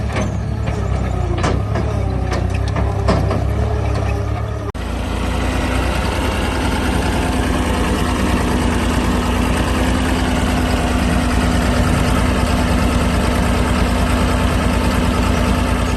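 John Deere 260 skid steer's diesel engine running, with clicking and squeaking from the machine's moving parts for the first few seconds. After an abrupt cut, the engine runs steadily and somewhat louder, with a steady whine held over it.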